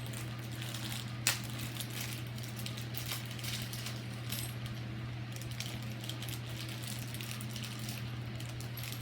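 Small metal clicks and clinks of wood screws and hardware being handled, with one sharper click about a second in, over a steady low hum.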